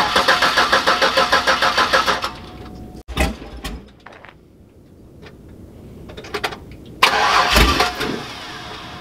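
A Chevy Silverado pickup's engine cranks on the starter in a fast, even churning for about two seconds without catching. There is a thump about three seconds in, then a second, shorter crank attempt near the end.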